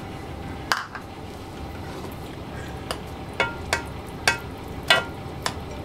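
Metal spoon stirring flour into a thick stew in a large metal cooking pot. It knocks against the pot once about a second in, then clinks against it about six times over the next few seconds, over steady low background noise.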